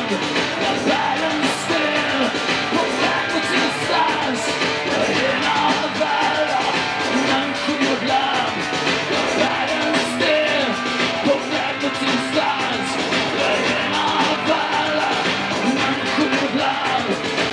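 Live rock band playing with a male singer singing into a handheld microphone, recorded on a home camcorder from the audience.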